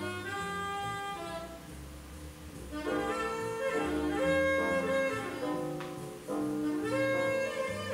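Instrumental background music of long held notes in several voices, swelling louder about three seconds in.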